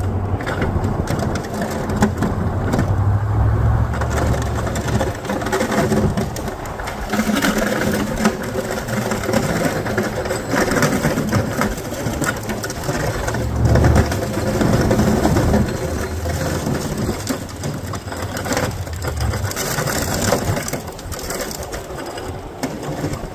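Snowdogg plow blade on a pickup truck scraping and chattering along a driveway as it pushes snow, with a continuous rattling, crunching racket that the uploader says sounds horrible at the fast plowing speed. The truck's engine hum underneath grows louder for the first few seconds and again for several seconds in the middle.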